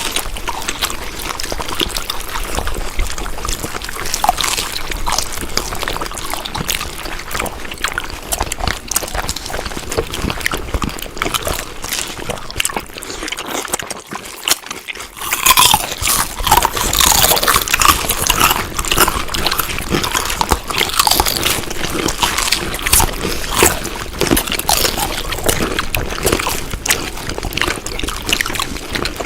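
Close-up wet chewing and smacking of food, a dense run of clicks and squelches. About halfway through it drops out briefly, then louder, crisper chewing follows.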